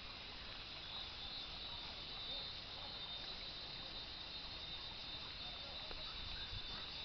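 Steady high-pitched chorus of forest insects, growing a little louder about a second in.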